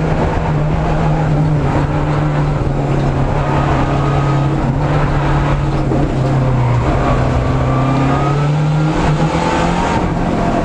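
Lancia Delta rally car's engine heard from inside the cabin, running with a steady drone whose pitch sinks slowly over several seconds, then climbs again in a couple of quick steps near the end.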